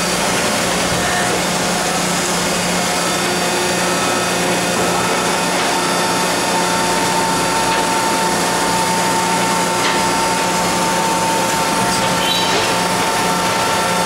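Logemann 345-AT two-ram baler running, its hydraulic power unit giving a steady hum and whine; a higher steady tone comes in about five seconds in and holds.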